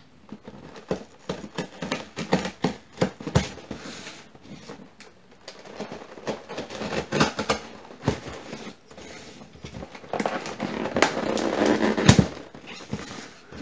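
Packing tape being cut and peeled off a cardboard box: irregular crackling and tearing, with a longer, louder rip of tape about ten seconds in.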